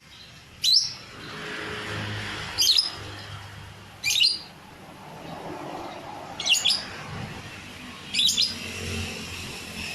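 A lovebird giving short, shrill calls, five in all, each one brief and spaced about one and a half to two seconds apart.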